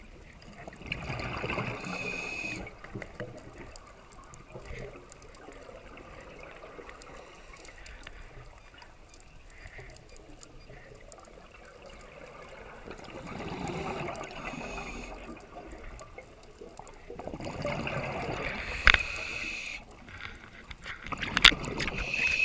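Scuba diver's regulator breathing, heard underwater through a GoPro housing: bubbling, gurgling exhalations about a second in and several times in the second half, with two sharp clicks near the end.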